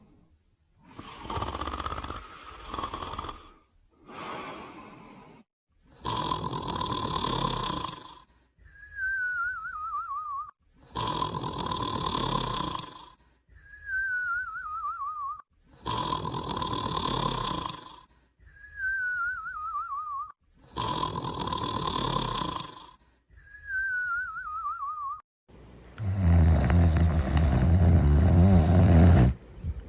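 Cartoon snoring sound effect: a rasping snore on the in-breath, then a whistle on the out-breath that wavers as it falls in pitch. The cycle repeats about every five seconds, and near the end comes a longer, louder, deeper snore.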